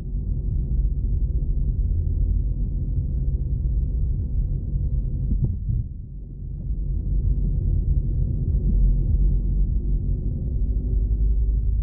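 Low, steady rumble of a car's engine and tyres heard from inside the cabin while driving, easing off briefly about halfway through, with a single short click just before the dip.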